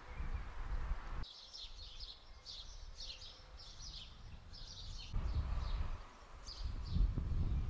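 Small birds chirping in quick runs of short, high notes, clearest from about a second in to about five seconds and again near the end. A low rumble covers the start and comes back about five seconds in.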